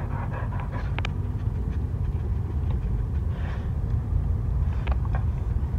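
Steady low rumble of a car driving, heard from inside the cabin, with a few faint clicks about a second in and near the end.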